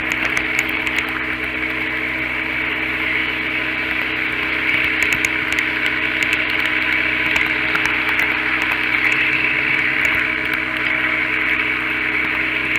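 Model train running on a layout: a steady electric-motor hum over wheel-on-rail rumble, with light irregular clicks from the wheels over the track.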